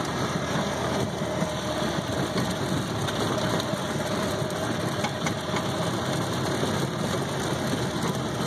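Golf cart's gas engine running steadily as the cart drives along, with a faint steady whine over the engine noise.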